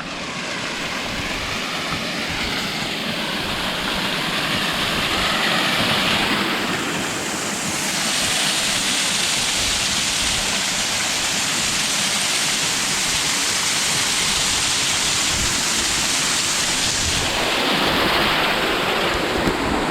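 Loud, steady rush of water, with no breaks or rhythm. It turns brighter and hissier about a third of the way in, then eases back near the end.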